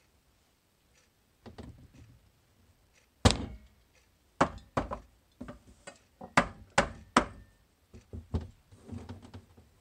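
Wooden soap loaf mould with a silicone liner knocked down on a wooden work table in a run of about ten dull thunks, the first the loudest, to settle the freshly poured first layer of thick soap batter.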